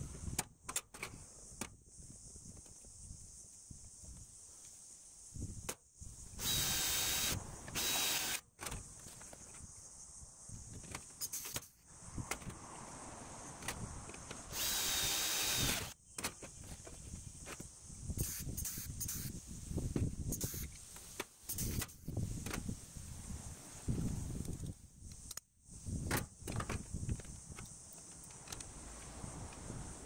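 Cordless drill running in three short bursts with a steady whine, about six, eight and fourteen seconds in, the last lasting about a second and a half, drilling holes in the aluminium sheet panel of a roof rack. Between the bursts come knocks and handling clatter as the metal is worked.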